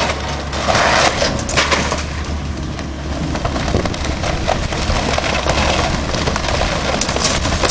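Wooden beach house being demolished: timber cracking, splintering and crushing, with sharper cracks about a second in and again near the end, over a steady low hum.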